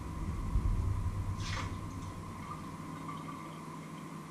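Water at a kitchen sink with a stainless steel bowl: a low rush of water for the first second and a half, then one short splash.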